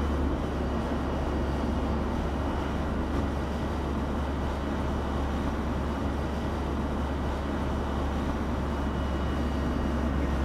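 Audi S3 cabriolet driving at a steady speed: an even low engine drone with road and wind noise, unchanging throughout.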